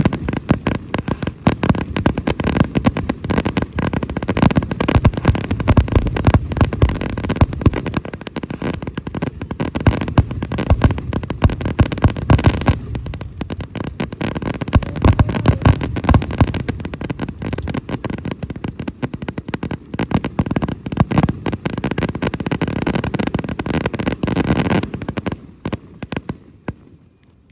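Fireworks finale: a dense, continuous barrage of bangs and crackling that thins out about twenty-five seconds in, leaving a few scattered pops.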